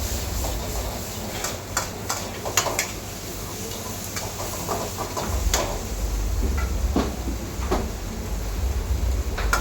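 Kitchen clatter: metal utensils and cookware knocking and scraping, with a few sharp clinks here and there, over a steady low rumble that gets stronger about halfway through.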